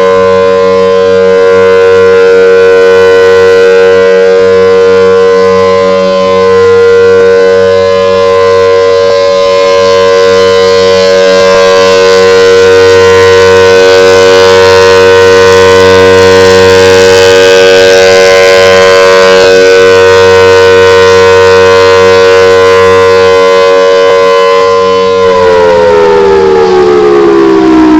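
Federal Signal Thunderbolt outdoor warning siren sounding a loud, steady tone during a siren test. About 25 seconds in it starts winding down, its pitch falling.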